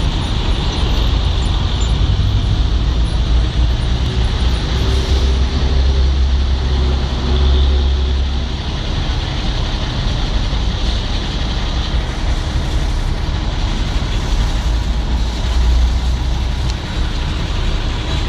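City street traffic with a diesel city bus running close by: a steady low engine rumble over general traffic noise, swelling louder twice, about six seconds in and near the end.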